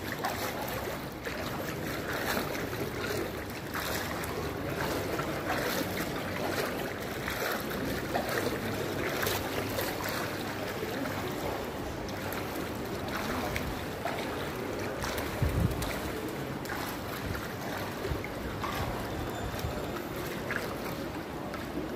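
Steady rushing noise of water and wind on the microphone, with a single low thump about fifteen and a half seconds in.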